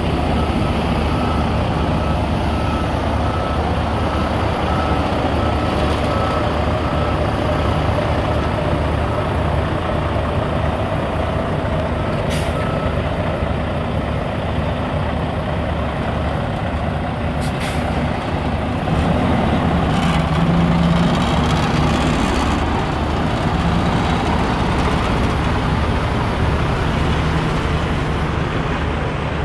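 A diesel semi-truck pulling a double-trailer road train reverses with its engine running low and steady. Its back-up alarm beeps evenly for the first half and then falls silent. A few short, sharp hisses of air from the air brakes come in the second half.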